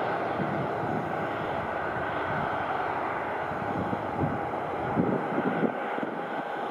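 Airbus A320-214's CFM56 jet engines at takeoff power: a steady roar with a faint whining tone, slowly fading. Wind buffets the microphone in a few thumps past the middle.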